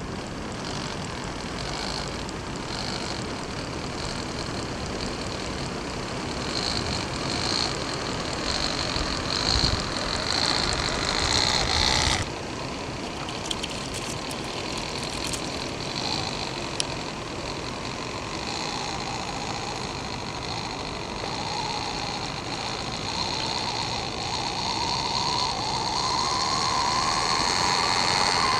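Small electric motor and gearbox of a radio-controlled micro crawler whining as it drives through snow. It drops abruptly about twelve seconds in, and toward the end a lower whine rises in pitch and grows louder as the motor speeds up.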